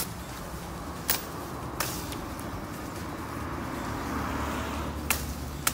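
Freshly sharpened ebi-nata (Japanese shrimp-nosed hatchet) chopping into thin tree branches: about five sharp cuts, three near the start and two near the end, the blade biting cleanly. A car drives past in between, its road noise swelling about four seconds in.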